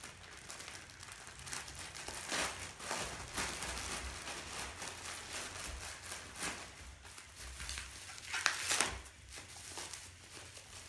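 Clear plastic bag crinkling and rustling as it is handled and pulled off a boxed parcel, in uneven bursts, with a louder rustle a couple of seconds before the end.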